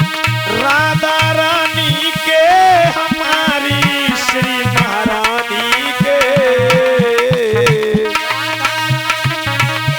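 Instrumental interlude of Indian devotional bhajan music: a tabla-style hand-drum beat under a melodic lead line that slides and wavers in pitch, over steady held accompaniment tones.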